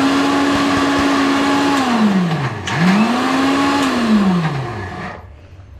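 Electric mixer grinder with a steel jar grinding green peppercorns and garlic into a paste. The motor runs at a steady pitch, is switched off about two seconds in and winds down, starts again at once, then winds down a second time and stops shortly before the end.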